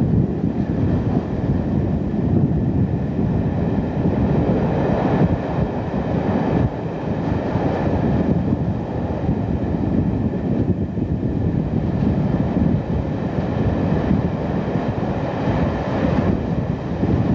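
Class 47-hauled passenger train running at speed, heard from aboard: a steady, even rumble of wheels on the rails and running noise as it passes through short tunnels.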